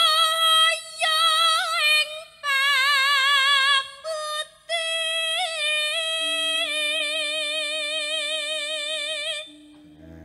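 Javanese sindhen (female gamelan singer) singing solo through a microphone: a high voice holding long notes with wide vibrato and ornamented turns, broken by short breaths, and stopping near the end. A faint low held note sounds underneath in the second half.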